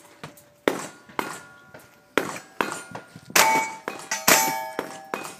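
Steel knockdown targets clanging and ringing as they are hit by shotgun fire: a rapid series of sharp hits, the loudest two near the middle, each leaving a ringing tone.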